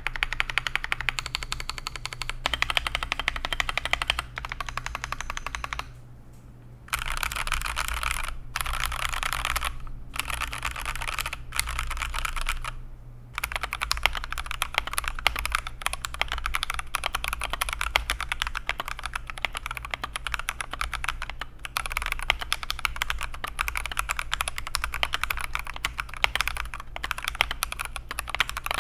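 Fast typing on a mechanical keyboard fitted with new Akko switches (Jelly and TTC series), a dense stream of key clacks in several takes broken by brief pauses, over a low steady hum.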